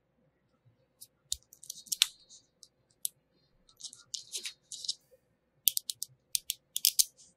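Small magnetic metal balls clicking and rattling against each other as hand-built magnetic-ball pieces are snapped together and a strand of balls is wrapped on. Sharp separate clicks and short rattling runs, ending in a quick series of crisp clicks.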